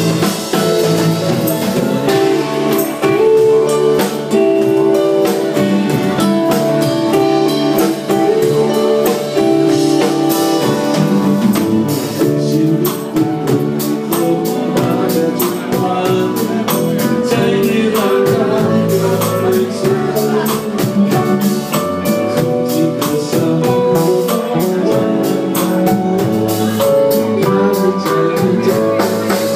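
Band playing an instrumental passage of a song: guitar lines over a steady drum-kit beat.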